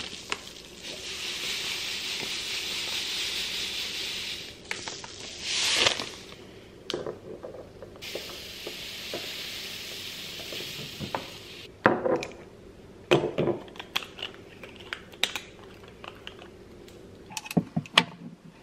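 Small dry seeds trickling out of a paper bag through a plastic funnel into glass jars, making a steady granular hiss twice, a few seconds each time. In the second half come scattered clicks and knocks of glass jars and plastic lids being handled.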